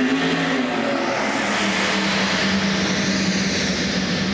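Recorded race car engine sound in the skaters' program music, a steady engine drone that dips in pitch about half a second in, played over the arena's loudspeakers.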